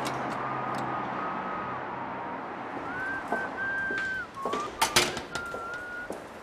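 A thin whistling tone over a steady hiss, holding a few notes for about a second each with short slides between them. A cluster of sharp clicks comes about five seconds in.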